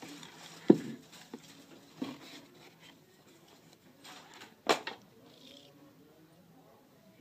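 Handling noise as items in a cardboard box are picked up and moved: three sharp knocks, the loudest about a second in, over light rustling of paper.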